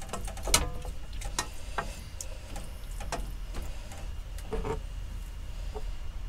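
Wooden spoon stirring a saucepan on the hob, giving irregular light knocks and taps with a few short scrapes, over a steady low hum.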